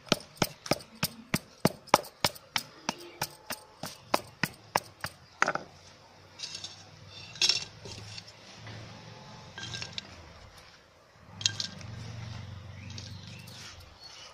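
A dried cake of plastering clay being pounded with a stone on a stone slab: sharp knocks about three a second that stop about five seconds in. After that, scattered clinks and scrapes as the broken clay pieces go into a small earthenware pot.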